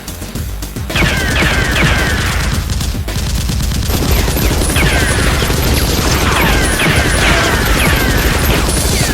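Rapid automatic gunfire, a dense run of shots starting about a second in, with repeated falling whistle-like sweeps through it, like ricochets or passing rounds.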